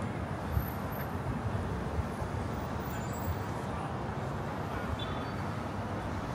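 Steady hum of city road traffic, an even rush of passing vehicles with no single one standing out.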